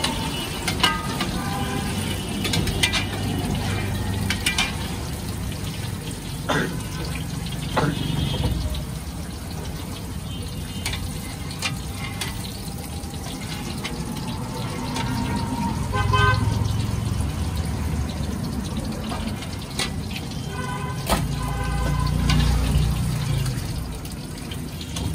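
Papad chips deep-frying in a kadai of hot oil, the oil sizzling and bubbling steadily, with a slotted metal spoon clinking and scraping against the pan now and then. Vehicle horns honk briefly a few times from the street.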